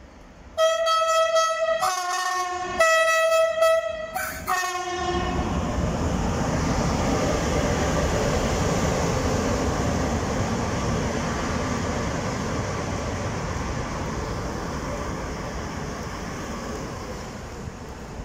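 SNCB class 13 electric locomotives sounding a two-tone horn, four notes switching high, low, high, low over about four seconds, then passing at speed with a steady rumble of wheels on rails that slowly fades.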